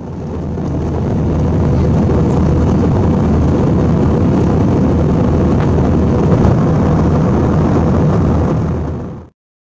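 Airbus A320 cabin noise in flight: the steady rush of the engines and airflow with a low hum underneath. It fades in at the start and fades out near the end.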